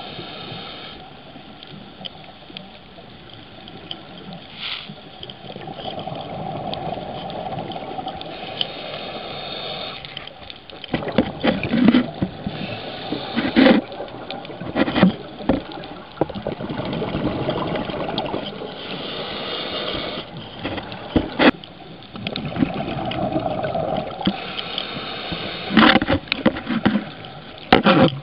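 Scuba diver breathing through a regulator, heard underwater: stretches of steady hiss alternate with gurgling bursts of exhaled bubbles. The bubble bursts come in clusters, mostly in the second half.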